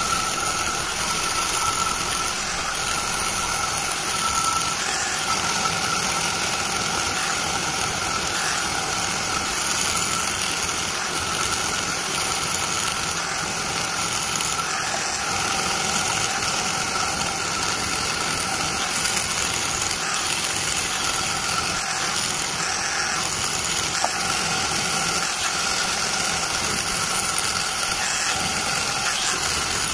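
Die grinder running with a single-cut carbide burr, cutting and shaping the aluminium intake port bowls of a Toyota 2JZ-VVTi cylinder head. A steady high-pitched whine with a grinding hiss, unbroken throughout.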